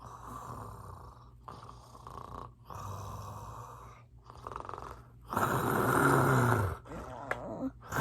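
A person mimicking snoring. Several soft, breathy snores come first, then about two-thirds of the way in a much louder, longer snore with a low rumble that falls in pitch, and a quieter one follows near the end.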